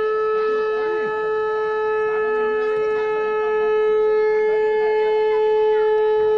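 Conch shell (shankh) blown in one long, steady note, over faint crowd chatter.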